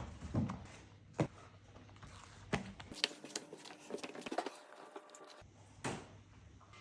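Scattered sharp taps, clicks and soft knocks of handling, irregular and unrhythmic, with the background changing abruptly at about three seconds and again near five and a half.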